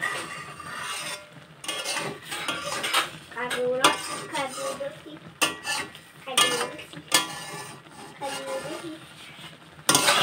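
Steel spatula scraping and clinking against a metal kadai, stirring a thick, sticky ber (jujube) pickle in irregular strokes.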